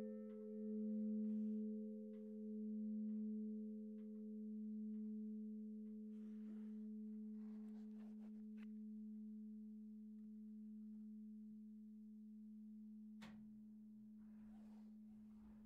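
Church bell, one of the tower's 1951 Otto bells, humming as it dies away after the ringing has stopped: a low steady tone with a few higher tones fading out, swelling and sinking slowly in loudness. A sharp click comes about 13 seconds in, and a similar faint bell hum carries on after it.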